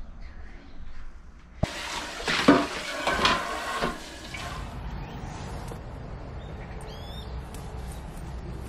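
Water from a sink tap running into a stainless steel sink as a pot is rinsed and washed under it; it starts suddenly about a second and a half in and stops after about three seconds.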